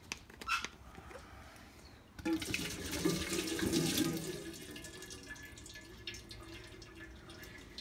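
Galden fluid poured from a plastic bottle into an empty metal tin can. The stream starts about two seconds in, runs strongest for about three seconds, then tapers off to a thin trickle.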